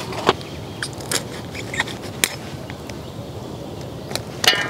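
Scattered light clicks and scrapes as a slippery desi magur catfish is rubbed and handled against the metal blade of a boti, with a louder cluster of clicks near the end.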